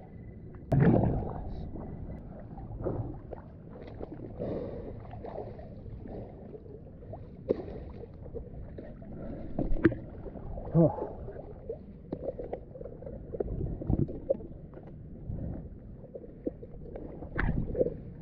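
Water splashing and sloshing as a diver swims at the surface with fins, with irregular knocks and gurgles close to the microphone.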